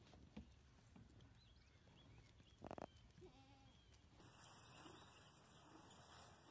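A goat kid bleats once, short and faint, near the middle, followed by a second softer call; faint high chirps come just before. Otherwise near silence, with a steady hiss taking over after about four seconds.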